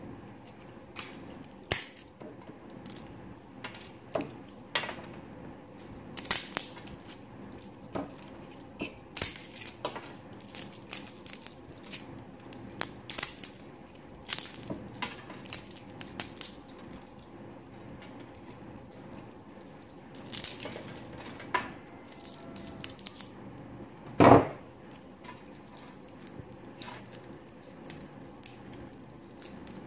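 Irregular sharp clicks and snaps of white support material being broken off a colour 3D print with needle-nose pliers and fingers. One louder, duller thump comes about three-quarters of the way through.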